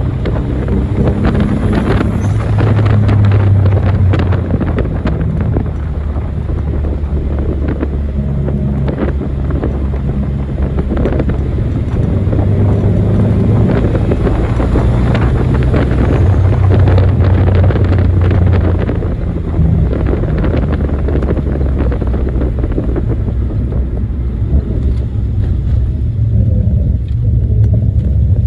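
Nissan 300ZX (Z31) V6 engine running while the car is driven, its note rising and falling with the throttle, along with road and wind noise.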